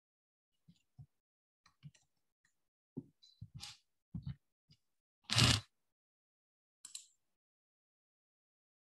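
Scattered taps of typing on a computer keyboard, with a louder short noise about five seconds in.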